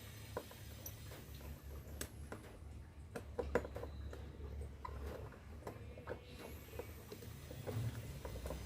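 Scattered small clicks and taps of hands and tools handling electrical wiring and an isolator, the sharpest about three and a half seconds in, over a low steady hum.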